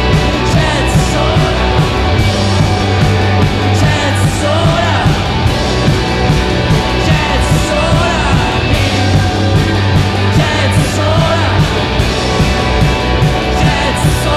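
Live rock band playing loud: electric guitar and drums driving a steady beat, with a man singing over them.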